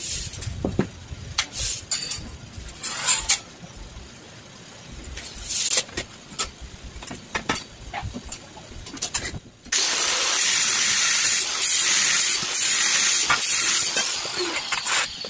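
Handheld angle grinder with a cut-off disc cutting through 1-inch hollow steel tube with a 2.5 mm wall. It starts suddenly about ten seconds in and runs loud and hissing until near the end, after a few seconds of scattered clicks and knocks from the tube and tools being handled.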